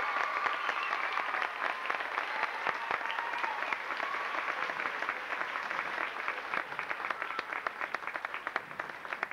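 A large crowd applauding in a gymnasium, the clapping thinning out near the end.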